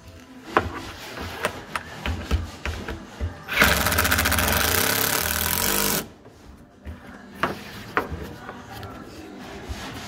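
Cordless impact driver driving a screw into a kayak backrest bracket in one burst of about two and a half seconds, a rapid rattling whirr that starts and stops abruptly about midway. Scattered clicks and knocks of the tool and parts being handled come before and after it.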